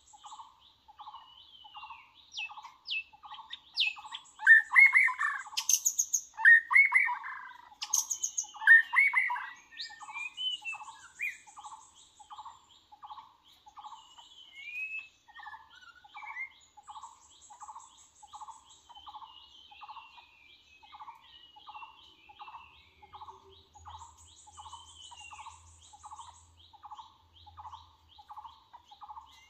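White-rumped shamas singing: loud whistled, warbling phrases between about four and ten seconds in, then softer scattered calls. Behind them runs a steady series of short repeated notes, about two a second.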